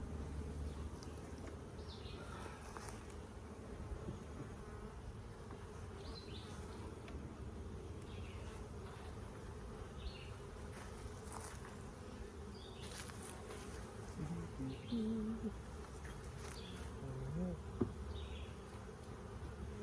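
Honeybees buzzing in a steady, many-voiced drone around the hives, with a few faint clicks and short high chirps over it.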